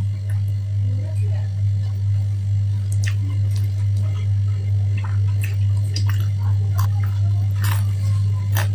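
A person eating by hand and chewing, with scattered short mouth clicks and smacks, over a steady low electrical hum.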